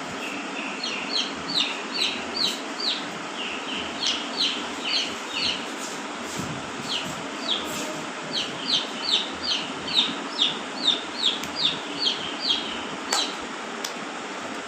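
A parakeet calling in two runs of short, sharp squawks that slide downward in pitch, two or three a second, over a steady background rumble. A single sharp click comes near the end.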